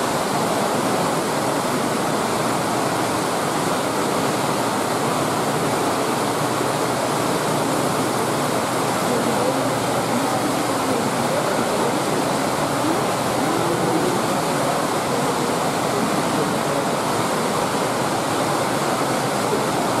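Water churning and splashing steadily in a large fish tank, a continuous, unbroken rushing noise.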